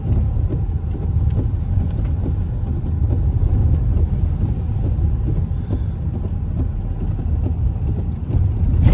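Low, steady road and engine rumble inside a moving car's cabin, with tyres on a wet road and faint scattered ticks.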